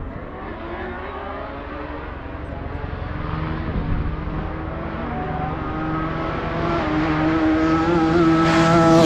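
Racing motorcycle approaching at high speed, its engine note growing steadily louder over several seconds and rising slightly in pitch, loudest near the end as it arrives at the point of passing.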